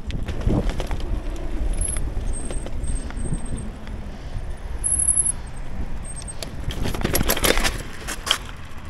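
Bicycle ride: wind rumbling on the microphone over road noise, with a clatter of rattles and knocks near the end as the bike goes over rough ground.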